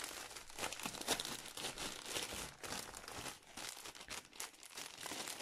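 Clear plastic film packaging crinkling as hands handle it, a dense, irregular crackle.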